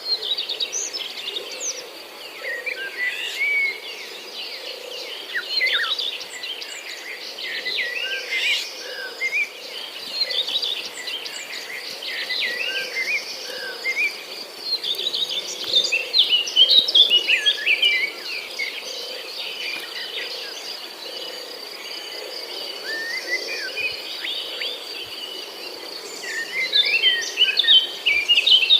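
Several birds chirping and singing in quick, overlapping phrases, busiest around the middle and again near the end, over a steady high-pitched insect drone. A soft low pulsing sound repeats about once a second underneath.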